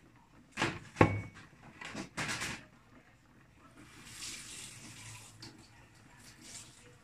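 Kitchenware knocking and clinking a few times, the loudest knock about a second in with a brief metallic ring, then a tap running for a second or two.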